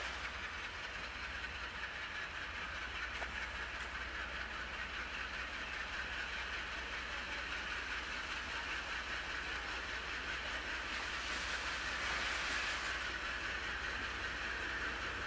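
Diesel locomotive hauling passenger coaches as it approaches slowly, its engine running with a steady hiss and a faint clatter of wheels on rail joints.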